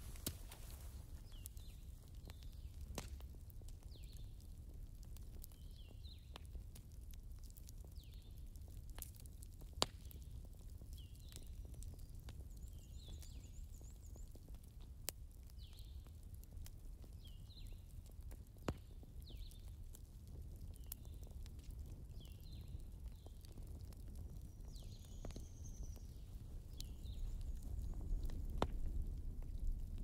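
Soft crackling of a log fire played by a digital fireplace: a low steady rumble with scattered pops and small crackles.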